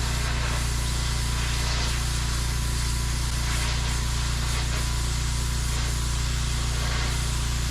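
Pressure washer running steadily, a constant low hum under the hiss of its high-pressure water spray.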